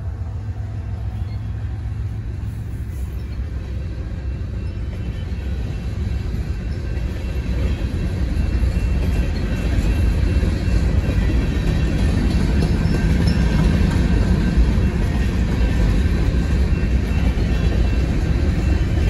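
Freight train passing close by: the last of its BNSF GE diesel locomotives goes by, then a string of covered hopper cars rolls past with a steady wheel-and-rail rumble that grows louder about eight seconds in.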